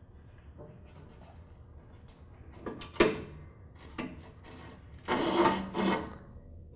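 Handling sounds of a rope being threaded through the end of a lawn tractor's idler spring against the steel frame: a sharp click about three seconds in, a lighter tap a second later, then about a second of loud rubbing as the rope is drawn through.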